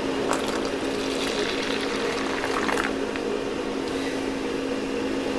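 Urine being poured into a clear cup of baking soda for about three seconds, then the mixture fizzing and foaming as it reacts, like a freshly opened soda. A steady low hum runs underneath.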